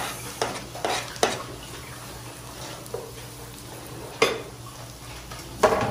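Wooden spatula scraping and knocking chopped red onion off a plastic cutting board into a frying pan, a few sharp taps in the first second and a half, then the onion sizzling in butter with ginger and garlic as it is stirred, with two more knocks against the pan about four seconds in and near the end.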